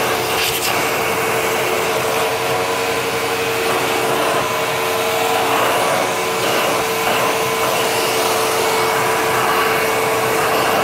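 Hoover Twin Chamber upright vacuum running steadily, drawing air through its hose and crevice tool, with a constant motor whine over the rush of suction. There is a faint click about half a second in.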